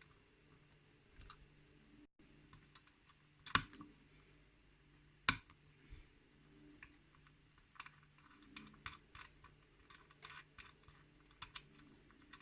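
Scattered small metal clicks and taps as tools work the spring-loaded back off a lock cylinder, with two sharper clicks about three and a half and five seconds in.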